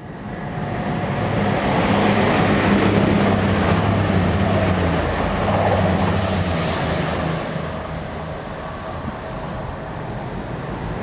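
Passenger train running past on the main line, a low steady hum over the rush and rumble of wheels on rail. It is loudest in the first half and fades as the train moves away.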